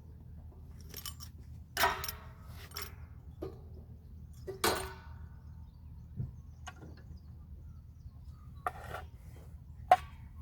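Metal tools and parts clinking and knocking a handful of times, some hits ringing briefly, the sharpest near the end, over a low steady hum.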